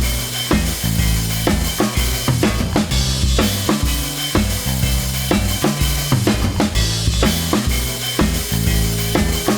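Background music with a steady drum-kit beat and a pulsing bass line.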